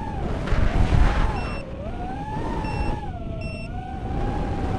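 FPV racing quadcopter's Racerstar BR2306S 2700 kV brushless motors spinning DAL 5045 three-blade props, a whine whose pitch rises and falls with the throttle, heard through the onboard camera's microphone. Wind rumbles on the microphone, loudest about a second in.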